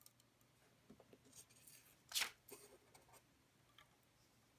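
Laser-cut living hinge in 1/8-inch Baltic birch plywood flexing as it is bent by hand, its cut lattice giving light ticks and crackles and one short rasp about two seconds in.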